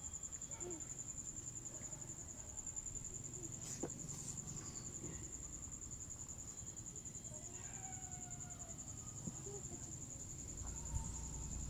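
An insect trilling steadily, a high unbroken pulsing tone, with a few faint rustles and ticks of cloth and chalk being handled.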